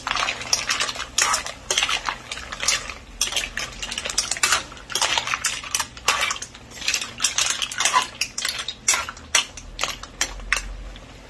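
A metal spoon stirring mussels in their shells in a wok: irregular scraping on the pan and clacking against the shells, stopping shortly before the end.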